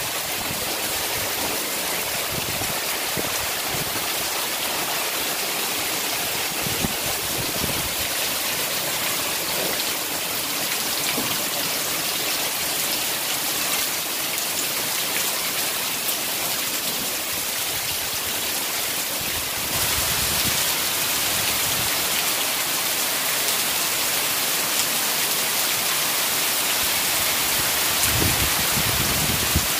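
Heavy tropical downpour: a steady hiss of rain pouring onto the yard and roof, growing louder about two-thirds of the way through.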